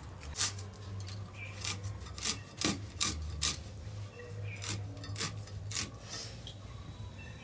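Red onion being cut against a boti, a curved blade set upright in a wooden block: a string of short, crisp cutting and scraping strokes at an uneven pace.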